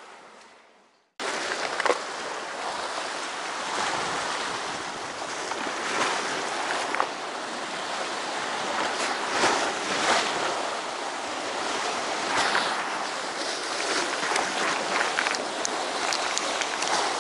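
Sea surf washing and breaking against rocks: a steady rush of white water with louder surges every few seconds. It starts suddenly about a second in, and a few sharp ticks come near the end.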